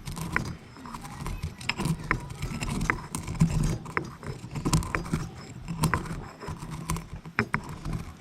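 Pestle grinding and knocking in a mortar, crushing black peppercorns, dried garlic, dried onion and sea salt. Irregular sharp clicks and knocks over a low grinding rumble.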